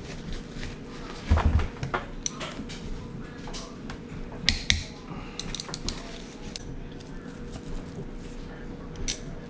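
Hand tools and metal engine parts clinking and knocking as the ignition-side cover of a Honda CRF150R engine is worked off. There is a heavier knock about a second and a half in and a few sharp clicks near the middle.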